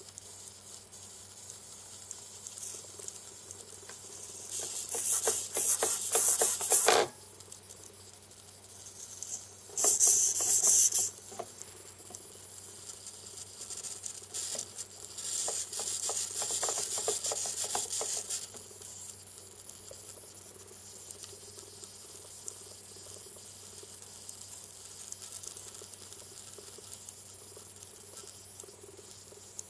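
HobbyKing micro linear servo with its 4x12 mm motor buzzing as it drives its slider back and forth, in three bursts of high-pitched whirring about 2.5 s, 1 s and 3 s long.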